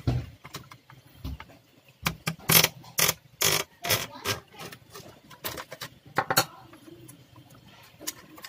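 Hands working a laptop motherboard loose from its plastic bottom case: a run of sharp clicks and knocks, with louder scraping and rattling between about two and four seconds in.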